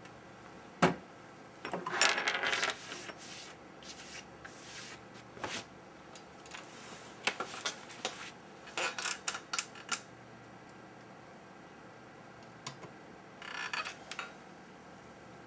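Tools and small parts handled on a workbench while a laptop circuit board is cleaned: irregular clicks and taps, with a couple of short rubbing, scrubbing passes.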